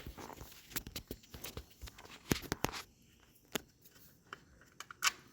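Scattered sharp clicks and light knocks of hands and tools handling mower parts. They come thickly for the first three seconds, then sparsely, with a louder click about five seconds in.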